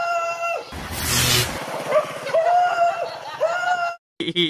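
A dog yelping in long, high, wavering cries, three times, as it shies away from a fake tiger. A short noisy rush comes about a second in.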